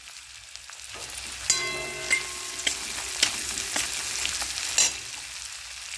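Chopped green chillies sizzling and crackling in hot mustard oil with grated ginger and turmeric in a kadai over a low flame, while a metal spatula scrapes and clicks against the pan. The sizzle builds after about a second, and a short metallic ring sounds about a second and a half in.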